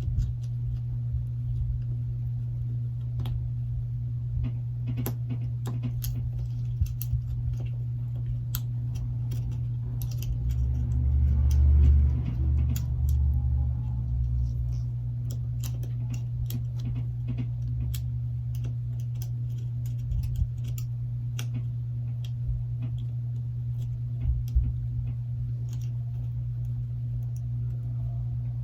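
Scattered small clicks and taps of hand tools and plastic parts on a phone being taken apart while its motherboard is pried loose, over a steady low hum. A low rumble swells near the middle.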